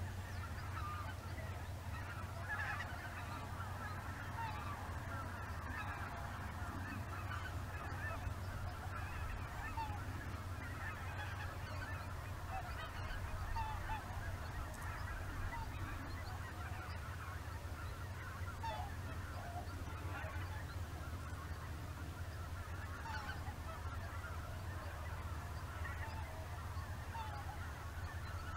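A flock of greater white-fronted geese calling continuously, many short, high calls overlapping, over a steady low hum.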